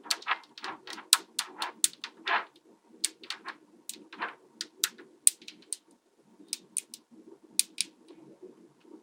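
Small magnetic balls clicking and snapping against each other as they are handled and joined, in sharp irregular clicks several a second, with a few softer rolling or scraping sounds between them. The clicks come thickest in the first few seconds and pause briefly past the middle.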